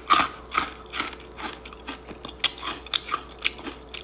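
Crunching of a person chewing very crispy deep-fried dried snakeskin gourami, bones and all, with several sharp crunches a second.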